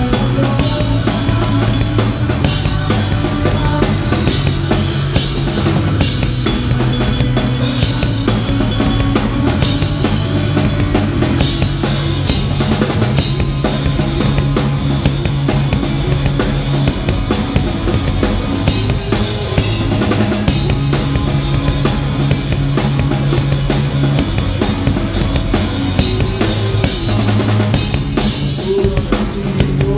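Live rock band playing a song: drum kit with bass drum and snare, electric bass holding long low notes that change every few seconds, and electric guitars.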